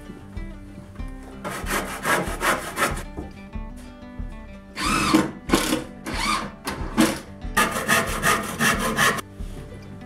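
Wood being sawn by hand, in three runs of quick rasping strokes, over background music with a steady beat.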